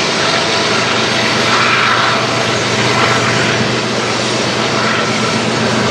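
Two GE diesel locomotives hauling a CN intermodal freight train past, a steady low engine drone over the rumble of wheels on rail.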